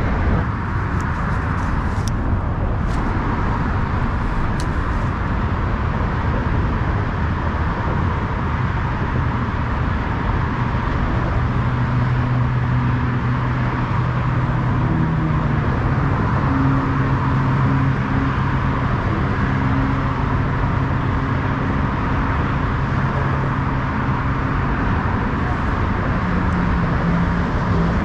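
Steady rushing outdoor background noise, with a low motor-like drone that comes in about eleven seconds in and holds, and a few faint clicks in the first few seconds.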